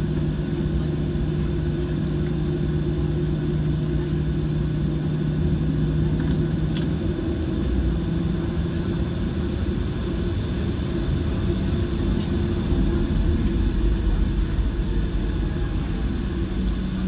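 Cabin noise of a Boeing 737-700 taxiing, its CFM56-7B engines running at low taxi power: a steady hum with a thin high whine over it, and one faint click about halfway through.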